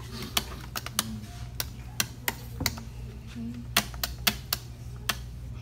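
Plastic push buttons on an interactive exhibit panel being pressed over and over, about a dozen irregular sharp clicks, over a steady low hum.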